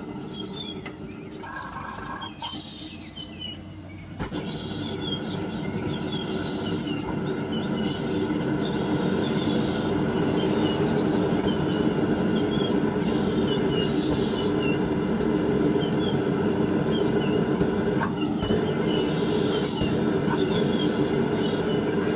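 Burners of a homemade forge furnace running with a steady rushing noise that grows louder from about four seconds in, then holds. Birds chirp throughout.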